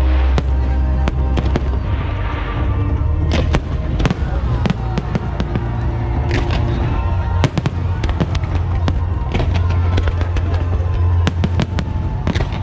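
Fireworks display: a rapid run of sharp bangs and crackles over a deep rumble, with music playing underneath.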